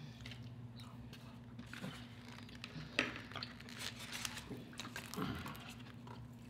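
Faint eating sounds: soft chewing and small clicks of fried food being pulled apart by hand, with one sharper tap about three seconds in.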